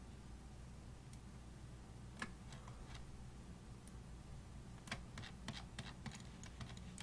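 Faint scattered clicks of a computer mouse, a few at a time and then a quick run of them near the end, over a low steady hum.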